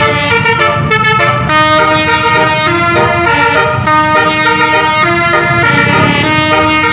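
Basuri telolet horn on a tour bus playing a melody: loud, overlapping horn notes stepping quickly from pitch to pitch, over a low rumble.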